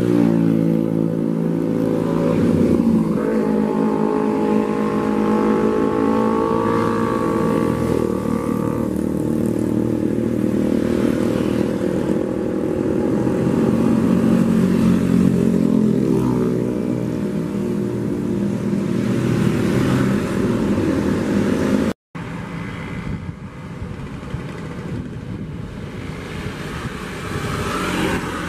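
Intercity coach bus diesel engine accelerating past in traffic, its pitch rising twice as it revs up through the gears, with motorcycles and cars running alongside. About three quarters of the way through it cuts abruptly to quieter road traffic as another coach approaches.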